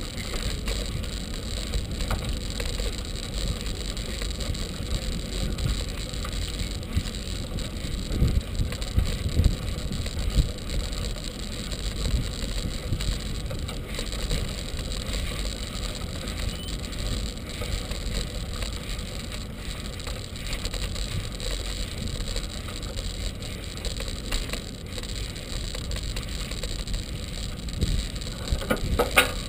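Bicycle in motion heard from a camera mounted on it: a steady low rumble of wind on the microphone and tyres rolling along the path. There are a few louder bumps about a quarter to a third of the way in.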